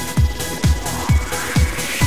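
Electronic dance background music with a steady kick drum about twice a second and a rising sweep building in the second half.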